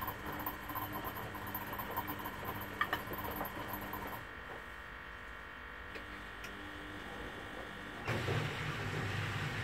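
Beko front-loading washing machines tumbling a wash: a drum motor whines and hums for about four seconds, then stops. About eight seconds in a louder motor hum with a rushing noise starts up.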